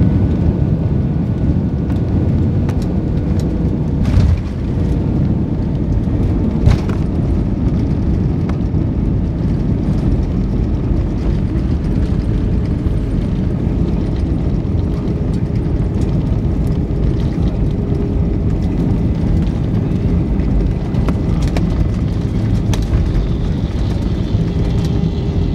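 Jet airliner landing, heard from inside the cabin: a steady loud rumble of engines, airflow and wheels. Two sharp thumps, about four and about seven seconds in, the second louder, come as the landing gear touches down on the runway.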